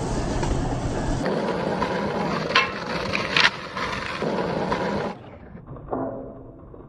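Skateboard wheels rolling on pavement, with two sharp clacks of the wooden board about two and a half and three and a half seconds in. The sound turns quieter and duller in the last couple of seconds.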